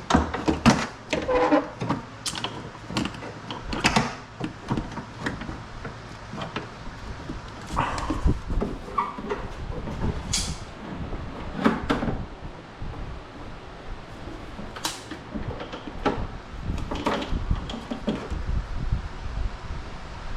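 Door handle parts being fitted back into an Infiniti G37 coupe's door by hand: irregular clicks, knocks and scrapes of plastic and metal pieces, scattered all through.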